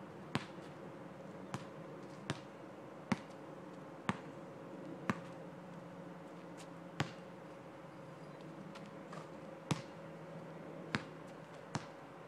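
Basketball bouncing on an asphalt court: about ten sharp single bounces at uneven intervals, roughly one a second at first and farther apart later, over a faint steady hum.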